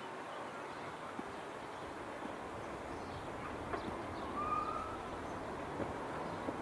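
Steady open-air background hiss with one short, level bird call about four and a half seconds in.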